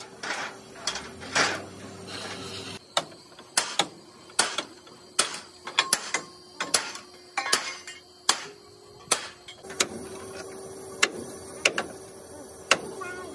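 Hammer blows on a Hino truck's steel chassis frame rail, a sharp strike roughly every two-thirds of a second, as the torch-heated section is beaten into shape. A steady hiss under the first few blows stops about three seconds in.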